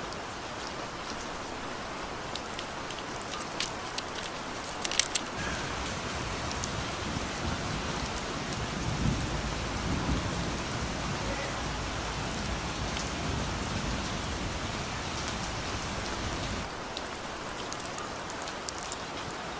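Steady rain falling. From about five seconds in until near the end a low rumble of thunder joins, swelling around the middle, with a couple of sharp clicks just as it begins.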